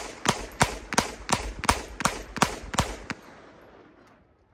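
Darra-made Zigana-pattern semi-automatic pistol firing single shots in rapid succession, about ten shots at roughly three a second. The last report fades away over about a second.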